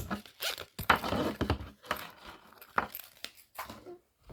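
Packaging crinkling and rustling in irregular bursts, with a few sharp clicks, as small items are handled.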